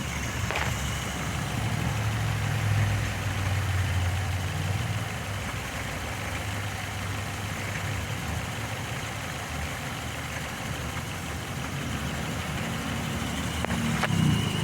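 2005 Hyundai Matrix's four-cylinder engine idling steadily while running on its gas (LPG) injectors. The car is logging a cylinder 2 misfire (P0302) and running a rich mixture.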